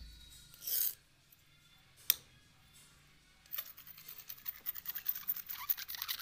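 Sound effects for an animated end screen: a brief whoosh under a second in, a single sharp click about two seconds in, then a dense run of fast, scratchy clicks from about three and a half seconds on.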